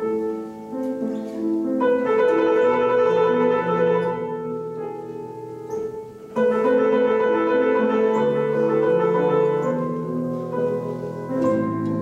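Piano and mandolin playing the instrumental introduction to a song, with sustained chords and melody. The ensemble swells in about two seconds in and again past the middle.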